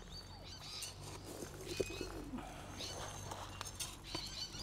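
Birds chirping and calling: short high chirps and brief whistles scattered through, over a faint low rumble.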